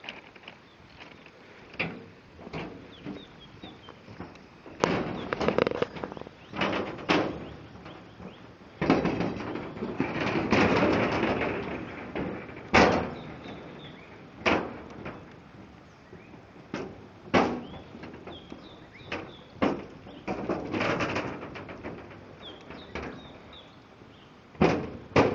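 Irregular bursts of rushing noise, rising and falling every second or two, with a few faint high bird chirps between them.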